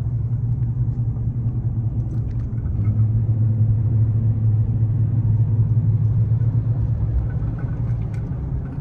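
Low, steady rumble of road noise inside a moving car's cabin, growing louder about three seconds in and easing slightly near the end.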